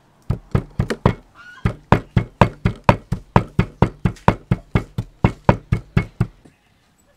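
Stone pestle pounding dry red pepper, salt and sugar in a stone mortar: a steady run of sharp knocks, about four a second, that stops near the end.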